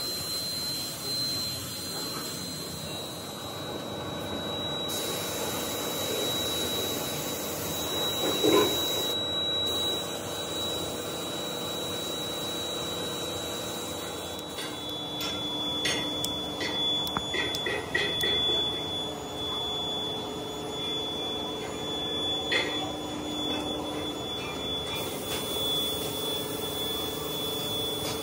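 Compressed-air spray gun hissing in long bursts as it sprays a coating into a casting mould, over a steady machine hum with a thin high whine. A few short light clicks come in the second half.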